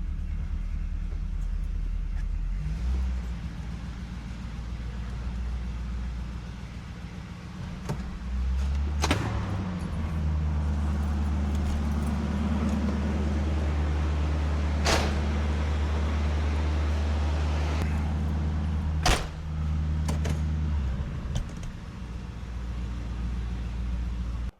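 1976 Cadillac Eldorado's 500 cubic-inch V8 running steadily, freshly filled with new oil, its low note shifting a few times. Three sharp knocks sound over it, and the sound stops abruptly at the end.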